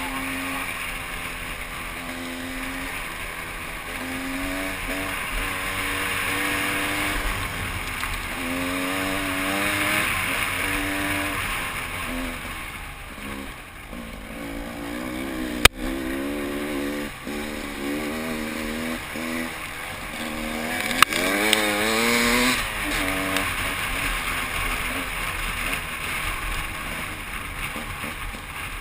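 Open-class (over 250 cc) dirt bike engine revving up and down as the bike is ridden along an enduro trail, its pitch climbing and dropping again and again with throttle and gear changes. Two sharp knocks, one about halfway through and one a few seconds later.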